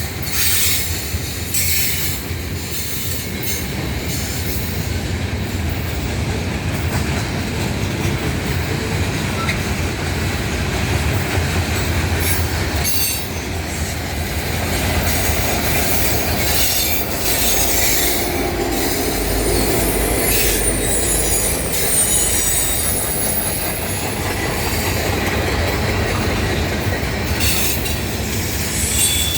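Freight train cars rolling past, their steel wheels clicking over rail joints with high-pitched squeals from the wheels against the rail.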